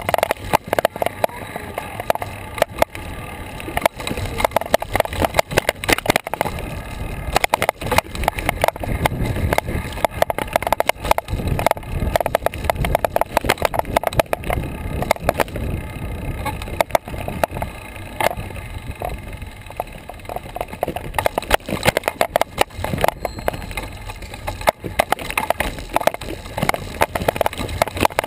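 Garmin VIRB action camera on its bicycle mount rattling and knocking continuously as the bike rolls over pavement, with a low rumble of road and wind noise.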